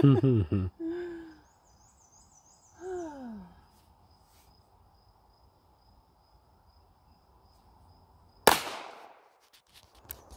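A single 9mm pistol shot from a CZ P-01, sharp and briefly ringing, about eight and a half seconds in. Insects chirp faintly behind it.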